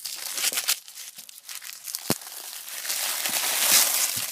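Wrapping on a brick of firecrackers being ripped off and crumpled by hand: crinkling and tearing, with one sharp click about two seconds in and louder crinkling near the end.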